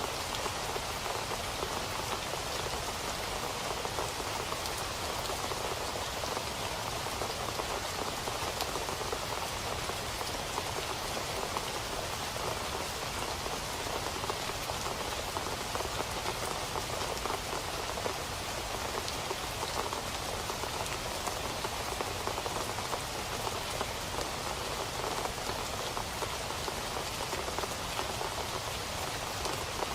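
Steady rain falling, an even hiss full of fine, close-spaced drop patters that holds constant throughout.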